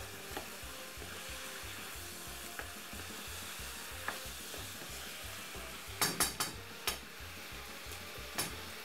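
Pork strips, peppers and spinach sizzling in sauce in a non-stick frying pan while being stirred with a wooden spoon. A cluster of sharp knocks from the spoon on the pan about six seconds in, and one more near the end.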